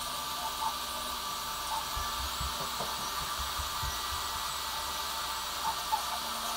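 A CR10 3D printer running steadily in the background, a continuous mechanical whirr and hum from its motors and fans, with a few soft low knocks about two to four seconds in.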